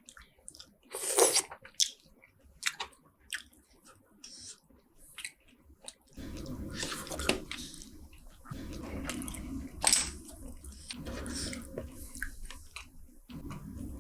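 Close-miked eating of spicy boiled seafood: scattered wet mouth smacks and clicks, one loud one about a second in, then steadier, fuller chewing from about six seconds in.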